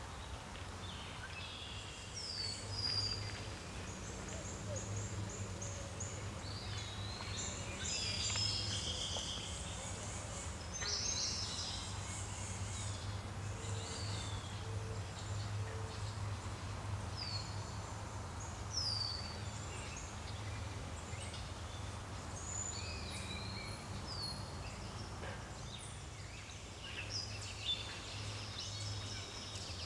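Wild birds chirping and calling, many short, mostly downward-sweeping chirps and whistled notes scattered throughout, over a steady low hum.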